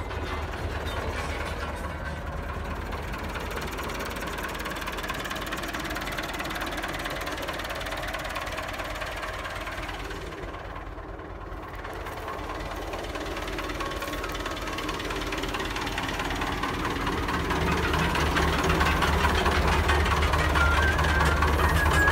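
IMT 577 tractor's diesel engine running steadily under load while pulling a disc harrow through the soil. It dips briefly about halfway through, then grows louder toward the end.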